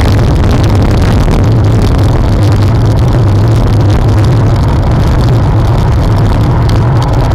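Steady, loud wind rush and road noise on the microphone of a camera mounted on a moving road bike.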